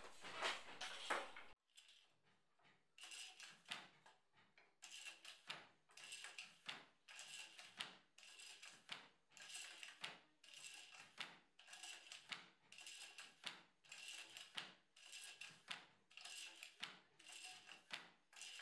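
Wooden handloom being worked: a faint, even series of swishing knocks, a little more than one a second.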